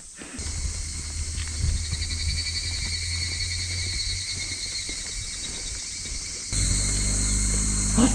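Cicadas chirring with a steady, pulsing high buzz over a low steady rumble. The sound steps up louder about six and a half seconds in.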